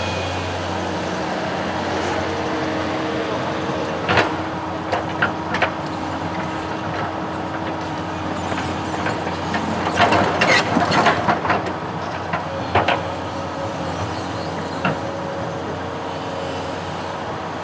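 A construction machine's engine running steadily, with scattered clanks and knocks, a cluster of them about two-thirds of the way in.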